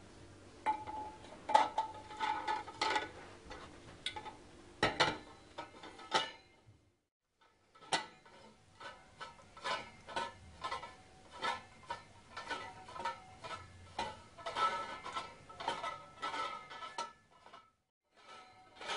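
Stainless-steel barrier post parts clinking and tapping as they are handled and fitted together: a ring slid onto the pole and the pole twisted tight into its base. The sound breaks off for a second or two about a third of the way through.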